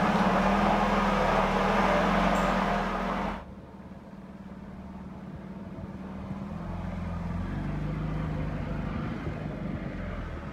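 A 1985 Pontiac Fiero 2M4's 2.5-litre four-cylinder engine running. The sound drops abruptly a little over three seconds in, then the car is heard driving past, growing louder and fading again.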